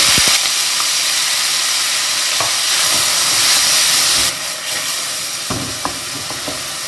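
Diced onions sizzling loudly in hot oil in a stainless steel pan, stirred with a wooden spoon. The sizzle eases a little about four seconds in, and the spoon knocks against the pan a few times.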